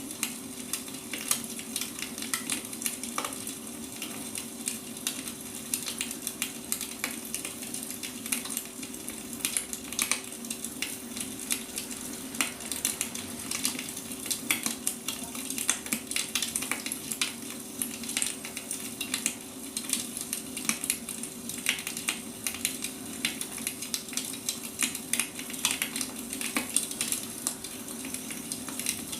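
Firewood burning, crackling and popping in dense, irregular snaps over a steady low hum.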